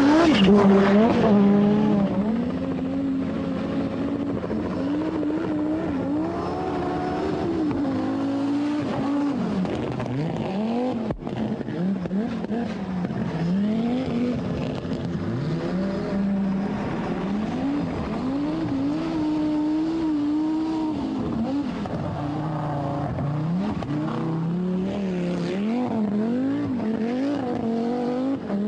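Audi Quattro rally car's turbocharged five-cylinder engine revving hard, its pitch climbing and dropping again and again. Loudest at the start as the car comes close, with a brief break about eleven seconds in.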